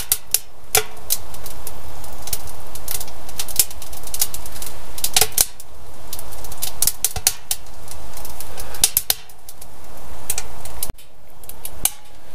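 Pine wood burning in a wood stove, crackling with sharp, irregular pops and cracks over a steady hiss of the fire.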